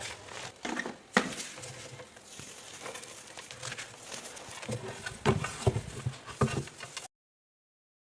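Dry reformed gym chalk crunching and crumbling as it is crushed, a run of crisp cracks and crunches, heaviest about five to seven seconds in. The sound cuts out abruptly about seven seconds in.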